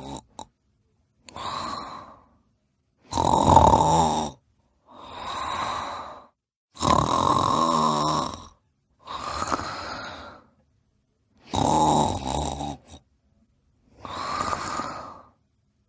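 A sleeper snoring in a steady rhythm. Three loud, rough, fluttering snores alternate with softer, breathier ones, one breath sound every two seconds or so.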